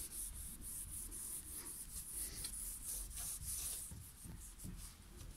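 A cut raw potato slice rubbed back and forth on a painted wooden door, a soft scrubbing in repeated strokes as it lifts stains off the surface.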